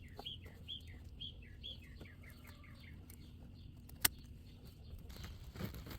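A bird chirping over and over, short curved chirps two to three a second that fade out after a couple of seconds, with a single sharp click about four seconds in.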